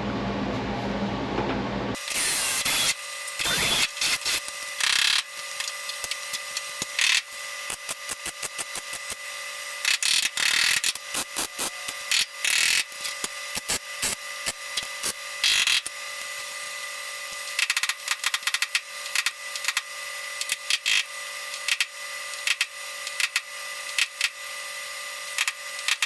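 Power-tool work on a sheet-metal patch panel: a steady high whine under many irregular sharp clicks and short crackling bursts, which stop and start.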